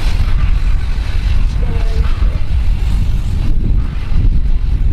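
V/Line N class diesel-electric locomotive approaching at the head of a passenger train, its engine giving a steady, deep rumble.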